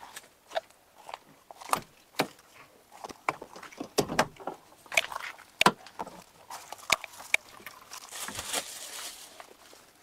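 Rummaging through gear: irregular clicks, knocks and clatter of things being moved and set down while searching for barbecue skewers, with a short rustle near the end.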